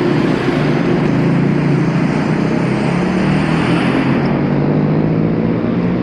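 Motor vehicle engine running steadily with road noise, a low hum that swells briefly about a second in.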